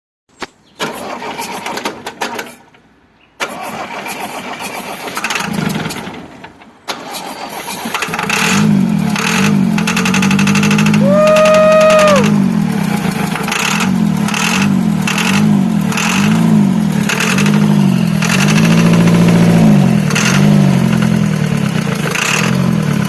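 Aro engine cranked in short, broken tries, then catching about seven to eight seconds in and running with a regular swelling and fading beat. A short steady tone, like a horn, sounds once about halfway through.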